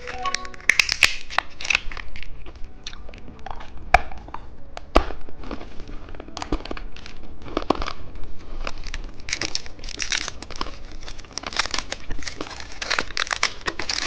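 Candy wrapper crinkling and tearing in irregular bursts with scattered clicks as a lollipop's packaging is handled and opened.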